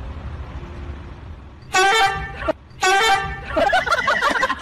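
Two loud, flat-pitched honks, each under a second and about a second apart, over a low hum, followed by a wavering, warbling sound near the end.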